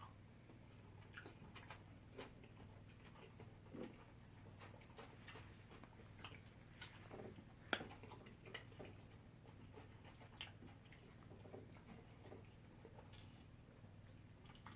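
Quiet eating sounds: faint scattered clicks and taps of cutlery on plates, and chewing, over a low steady hum, with one sharper click about halfway through.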